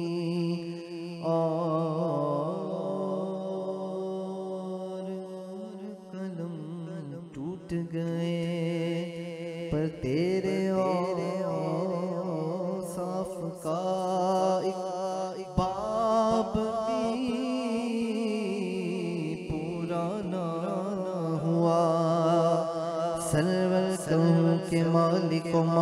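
Male voice reciting a naat in long, drawn-out melodic phrases over a steady low drone.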